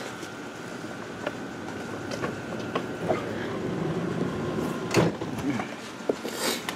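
A cigar box being handled and turned over: scattered light taps and knocks, with one sharper knock about five seconds in, over a faint steady rumble.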